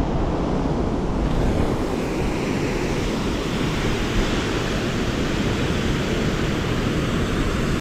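Steady rush of churning water released through a river dam's spillway gates, with wind buffeting the microphone.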